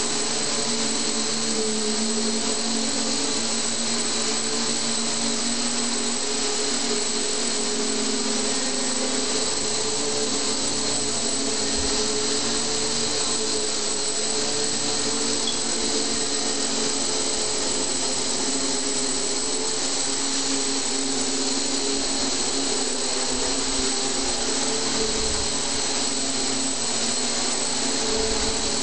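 A 450-size X8 multirotor, a quadcopter converted to eight motors, hovering: a steady buzz of electric motors and propellers, with several held humming tones over a hiss.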